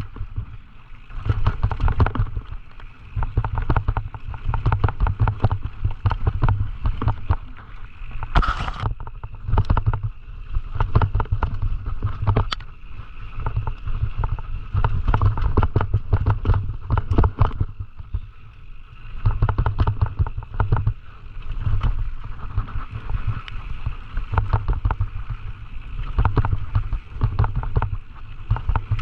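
Downhill mountain bike ridden fast over rough trail: a dense, rapid rattle of chain, frame and suspension knocks and tyres on dirt and rock, over a steady low rumble, with a few brief quieter moments.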